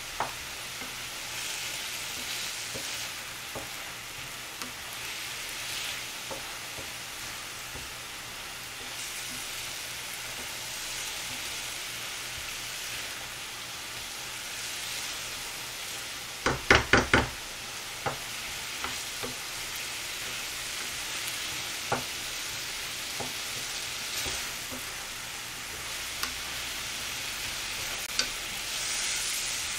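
Julienned radish sizzling as it stir-fries in a frying pan, a wooden spatula stirring it with occasional light knocks against the pan. About halfway through comes a quick run of about five louder knocks.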